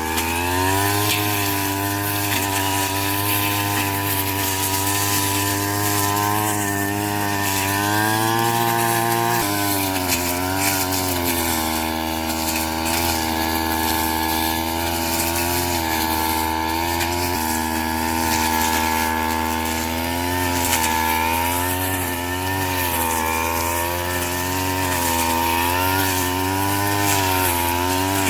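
Small petrol engine of a straw-cutting machine running continuously, its speed dipping and recovering again and again as it works through the straw.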